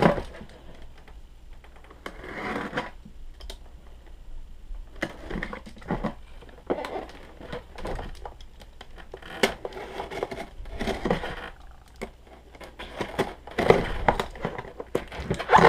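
Cardboard box and packing being handled and pried open by hand: irregular rustling, crinkling and scraping with scattered small clicks.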